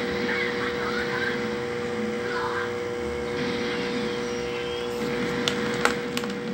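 Steady hum of aquarium equipment with a constant tone. Faint voices sound in the background during the first couple of seconds, and a few sharp clicks come near the end.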